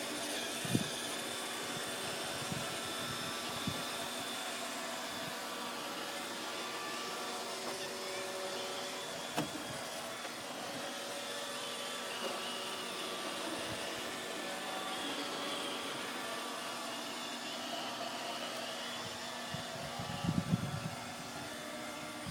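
iRobot Roomba 580 robot vacuum running steadily, its motor and brushes humming. There are a few sharp knocks as it bumps into things, with a cluster of louder knocks near the end.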